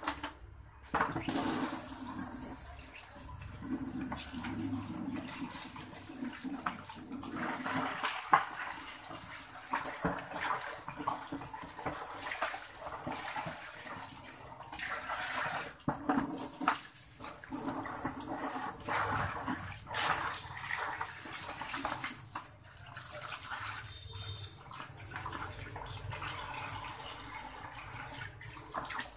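Water running from a tap and splashing onto a wet concrete floor, unsteady as hands move through it, with a few sharp knocks.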